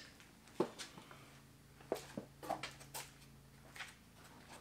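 A handful of scattered knocks and light thumps as a car seat is carried and worked into a pickup truck's cab, over a faint steady hum.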